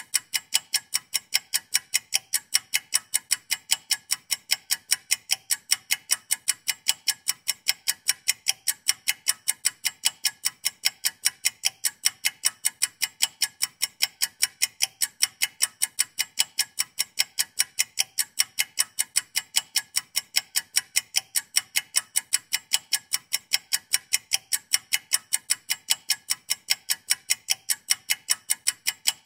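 Countdown timer's clock ticking: sharp, evenly spaced ticks, several a second, marking a two-minute puzzle timer running down.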